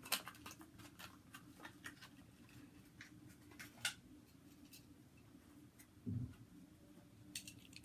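Faint, irregular clicks and crinkles of a Hot Wheels blister pack being opened by hand, with a dull thump about six seconds in.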